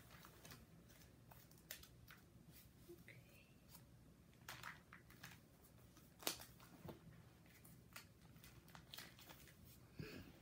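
Faint crinkling and rustling of plastic binder card sleeves being handled as baseball cards are slid in, with scattered soft clicks; the sharpest click comes about six seconds in.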